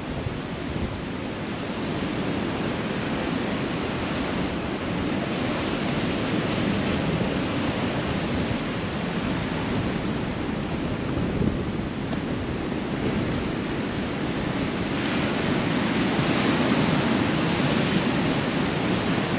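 Ocean surf: a steady wash of breaking waves that swells and eases, growing louder near the end.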